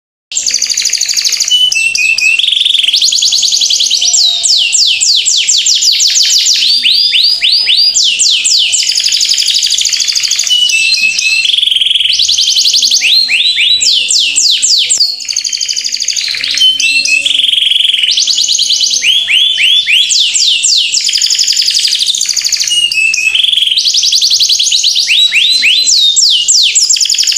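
Loud, rapid runs of high, falling chirps repeated over and over in a regular loop, like a looped bird-call recording laid over the pictures, with a faint music-like bed underneath. It starts suddenly from silence.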